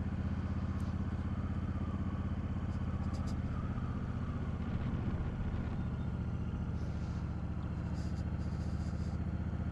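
Motorcycle engine running steadily at an even, unchanging pitch.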